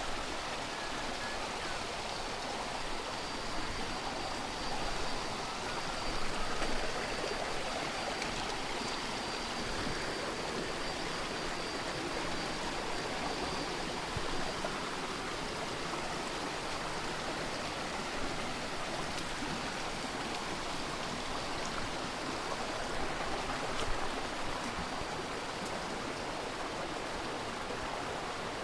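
Steady rush of running water, as of a stream, with a faint high steady tone through much of it.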